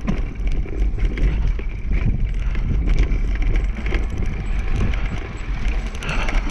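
A dog scooter rolling fast over a rough dirt trail behind its team: a steady rumble of wheels on the ground, with small rattles and clicks from the frame, and wind rumbling on the microphone.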